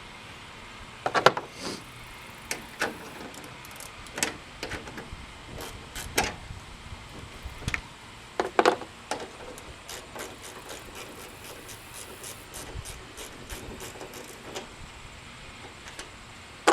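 Scattered clicks and knocks of hand tools working on a pickup's taillight fasteners, with a run of quick light clicks in the second half.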